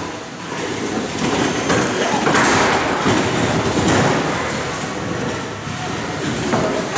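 Antweight combat robots driving and scraping across a plywood arena floor, a rumbling clatter of small wheels and metal shells on wood. It is loudest from about two to four seconds in, with a few sharp knocks.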